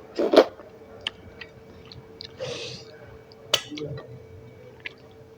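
Close-miked eating sounds: chewing and wet mouth noises with sharp clicks, starting with a louder burst and followed by a short hissing breath about two and a half seconds in.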